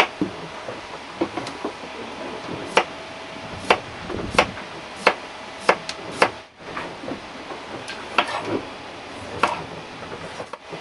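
A kitchen knife striking a chopping board in irregular cuts, about a dozen sharp knocks, with a fan humming steadily behind.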